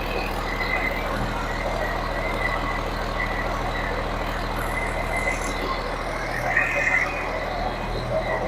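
Caterpillar 3176C inline-six diesel engine in a CAT 163H motor grader idling steadily just after startup on a freshly rebuilt powertrain; it is running nice and smooth.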